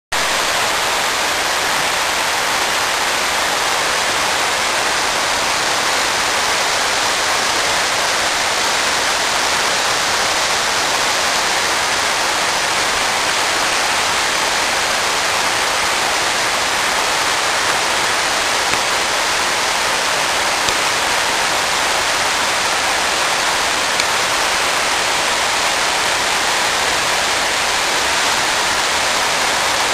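Steady rushing water, a loud even wash of sound that never lets up.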